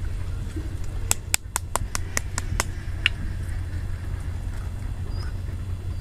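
A small animal calling: a quick run of about eight sharp chirps, about five a second, with one more shortly after, over a steady low rumble.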